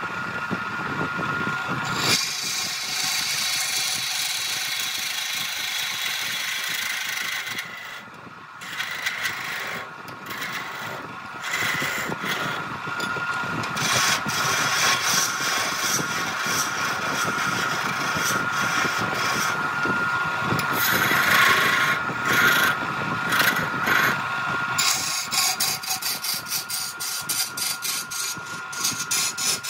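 Wood lathe running with a steady motor whine while a turning tool cuts and scrapes the spinning wood. The cutting noise drops away briefly about eight seconds in and grows louder again from about fourteen seconds.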